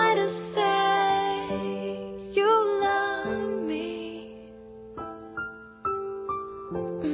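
The closing bars of a slow ballad: a female voice holds the last sung notes over piano and sustained keyboard, then a few single piano notes step down to end it.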